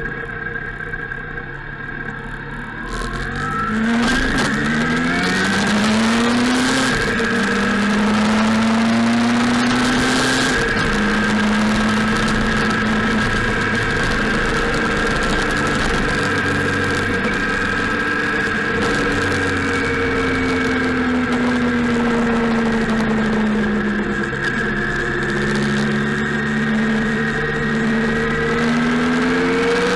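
Motorcycle engine heard from the bike it is on. It pulls away with its pitch rising about four seconds in, then cruises with the pitch slowly falling and rising again, over a steady rush of wind.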